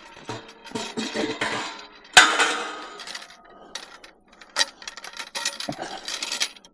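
Pieces of scrap metal clanking and clinking together as they are handled, with one loud ringing clang about two seconds in.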